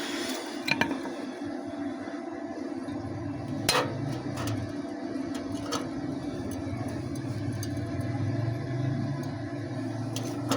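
A steady low mechanical hum, deepening about three seconds in, with a few sharp clicks or taps scattered through it.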